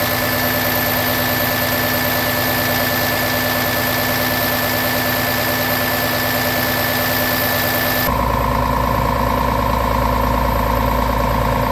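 Scania R 450's 13-litre inline-six diesel idling steadily. About eight seconds in the sound changes abruptly to a deeper, duller hum.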